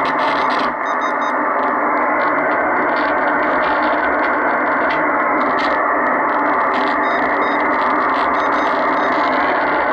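Steady static hiss from the Kenwood TS-440S HF transceiver's receiver audio, band noise with nothing above a mid-high pitch, as through a narrow SSB receive filter. Faint irregular clicks from keypad buttons being pressed run through it.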